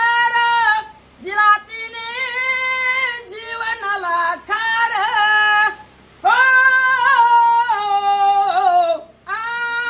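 A high-pitched solo voice singing a Marathi song with no instruments, holding long notes with sliding ornaments and pausing briefly for breath between phrases.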